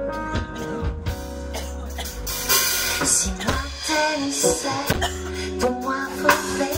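Live band playing jazzy zouk: a woman singing over guitar, a steady bass line and drum kit with cymbal hits.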